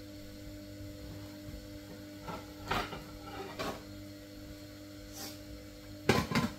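Cookware and utensils being handled: a few scattered clicks and knocks, then a short, louder clatter near the end, over a steady low hum.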